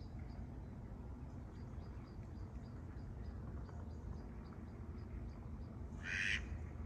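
A duck quacking once, a short harsh call about six seconds in, over a low steady rumble with faint high ticking about three times a second.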